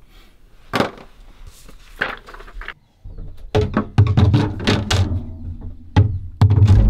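Wire storage baskets of a SunDanzer DC chest freezer clattering and knocking against the freezer as they are lifted out. A couple of separate sharp clanks come first, then a quick run of rattles and dull thumps in the second half.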